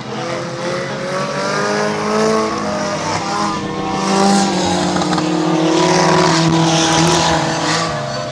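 Several small cars racing in reverse, their engines revving hard in reverse gear. Several engine notes overlap and rise and fall as cars pass close, loudest about four seconds in and again around six to seven seconds.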